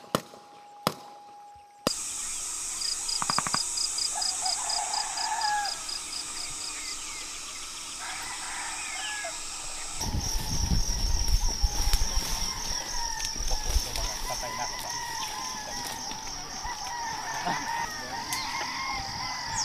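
Outdoor ambience with birds calling, among them roosters crowing, over a fast-pulsing high-pitched drone. A low rumble comes in about halfway.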